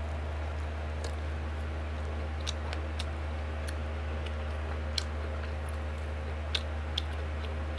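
Scattered small clicks of someone eating rice and pork by hand and chewing, over a steady low hum.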